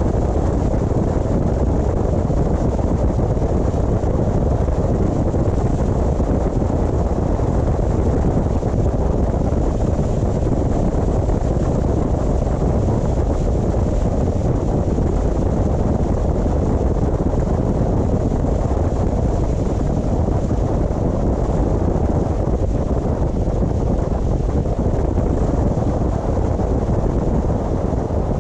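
Steady road and wind noise from a car driving along, an even low rumble with no changes.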